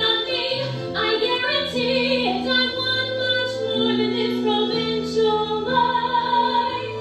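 A woman singing long held notes over a theatre orchestra's accompaniment.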